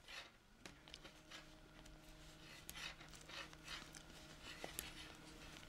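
Circular knitting needles and yarn being worked while knitting stitches: faint, irregular soft rubs with a few light ticks of the needles, over a low steady hum.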